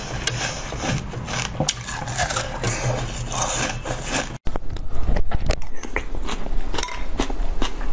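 Close-miked bites into a frozen dessert, icy crunching and scraping with many sharp clicks. About four and a half seconds in it cuts to spoonfuls of small purple jelly beads being chewed, with rapid clicks.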